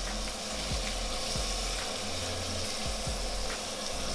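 Sirloin steaks sizzling steadily in melted butter on a hot grill.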